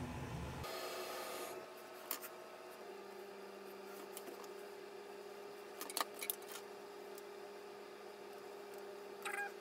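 Hair being worked with a comb and flat iron: a few faint, short clicks and rubbing sounds over a low steady hum.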